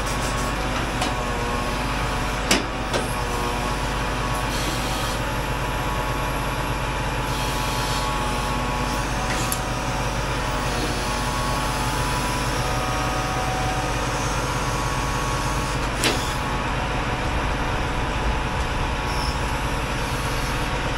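Delivery lorry's engine running steadily to drive its lorry-mounted crane while it lifts a pack of bricks in a grab, with two sharp knocks, one about two and a half seconds in and one near sixteen seconds.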